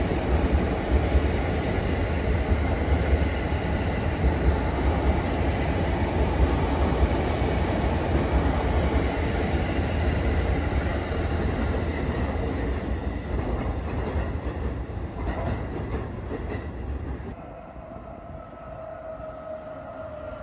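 E233-series electric train running past a station platform: a steady rumble of wheels and motors that eases off as the last car goes by. About 17 seconds in it cuts to a quieter scene with a steady whine from another train approaching in the distance.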